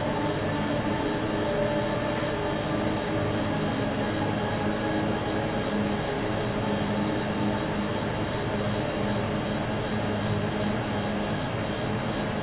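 A steady machine-like drone, rumble and hiss with several constant tones underneath, holding an even level throughout.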